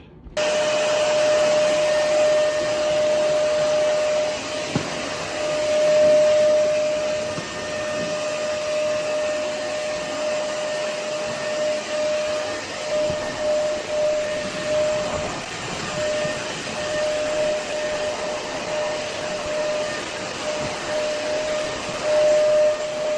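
Floor-care machine running steadily with a vacuum-motor rush and a steady mid-pitched whine. The whine turns choppy in the second half.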